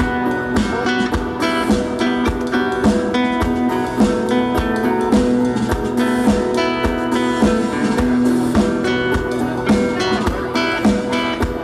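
A live band playing: guitars over a drum kit keeping a steady beat.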